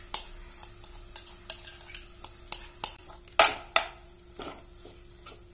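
Metal spoon stirring and scraping in a nonstick saucepan, working mashed boiled ripe plantain into a sugar and grated-coconut mixture. It makes a run of sharp clinks, about two or three a second, with two louder ones a little past halfway.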